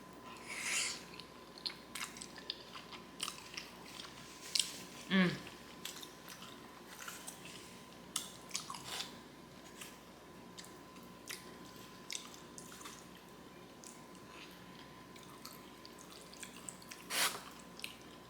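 Close-miked chewing of a black bean noodle and kimchi meal: wet smacking clicks and crunches at irregular intervals, with louder bites near the start, a few seconds in, and near the end.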